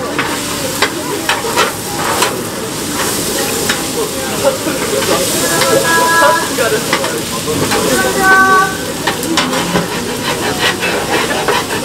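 Chicken sizzling on a hot grill plate, with metal utensils scraping and clicking against the plate as the meat is turned and stirred. A short pitched tone sounds twice, about six and eight seconds in.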